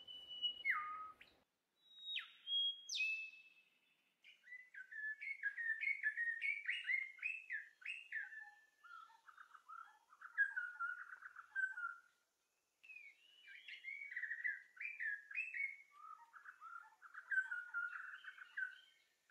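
Birds chirping and whistling in quick, short phrases, with a few brief pauses between them.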